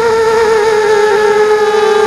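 Quadcopter's four ZMR 1804 2200kv brushless motors spinning 5030 props, making a high whine that holds nearly steady in pitch, wavering only slightly.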